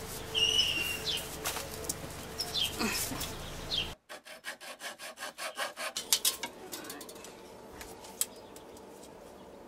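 Hacksaw cutting through a green garden stake: quick, even back-and-forth rasping strokes, clearest from about four seconds in and growing fainter toward the end.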